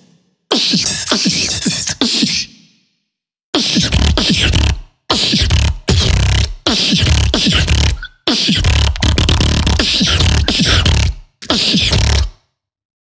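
Solo human beatboxing: fast mouth-made percussion with hissing high sounds and, from about three and a half seconds in, heavy bass. It comes in short phrases, each cut off by an abrupt dead stop.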